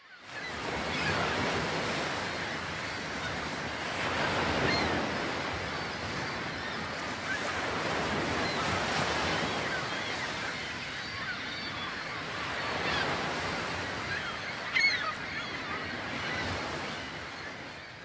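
Steady rushing ambient noise that swells and eases, fading in at the start and out near the end. Faint high chirps are scattered through it, and a short, sharp rising call comes about 15 seconds in.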